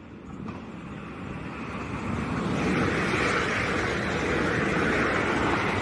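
Two coupled Class 350 electric multiple units passing through the station at speed without stopping: a rush of wheels on rail and air that builds over the first two or three seconds and then holds steady.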